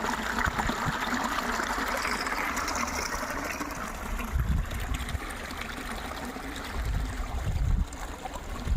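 Flowing water trickling steadily, like a small stream, with a few low dull bumps partway through and near the end.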